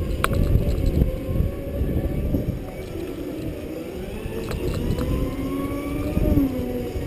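Segway's electric drive whining. The whine climbs steadily in pitch for a few seconds as the machine speeds up, then drops about six seconds in. Underneath is a steady low rumble.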